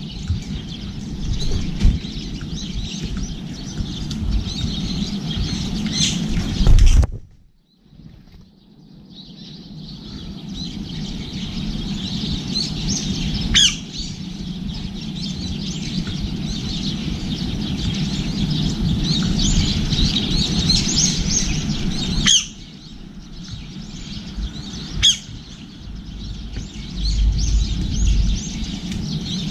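Birds chirping rapidly and continuously over a steady low background rumble, with a few sharp clicks. The sound drops out briefly about seven seconds in and fades back up.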